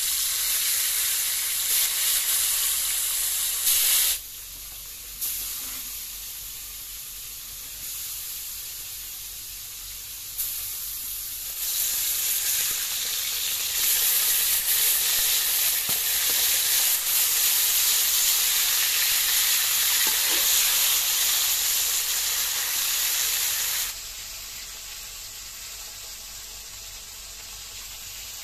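Small bata fish sizzling as they fry in hot oil in a kadai, with a spatula stirring them now and then. The sizzle is loud in stretches, swelling and falling off, and drops sharply about four seconds before the end.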